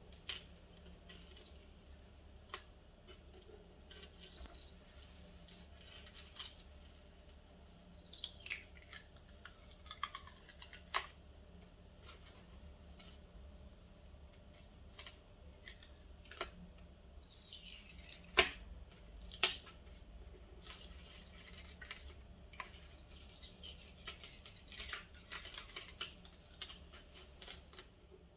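Latex masking fluid being peeled off watercolour paper: a string of small sticky snaps and tearing crackles, with a few falling, whine-like sweeps as the rubbery film stretches and lets go. Two louder snaps come about two-thirds of the way through.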